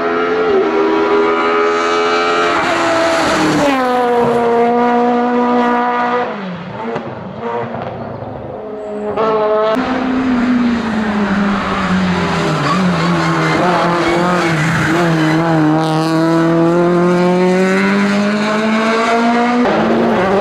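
Hillclimb race car engines at high revs, one car after another. The engine pitch drops as a car brakes and shifts down for a bend, then climbs again as it accelerates away. The sound dips for a few seconds in the middle before the next car comes through loud.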